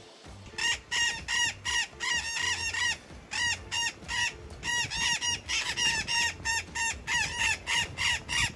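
A bird in the tree canopy calling with harsh, squawking notes repeated rapidly, several a second, starting about half a second in and going on without a break.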